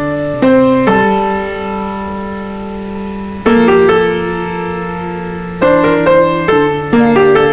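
Background piano music: chords struck and left to ring, a few held for a couple of seconds, with quicker notes near the end.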